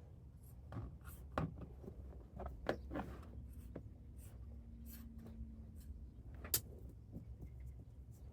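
Scissors cutting through a trim-to-fit rubber cargo mat: irregular snips and scraping, with one sharper click about six and a half seconds in.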